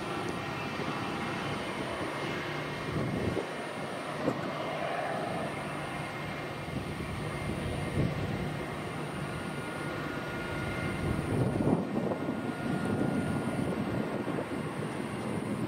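Fokker 70's twin Rolls-Royce Tay turbofans at low taxi power: a steady jet rumble with a faint whine.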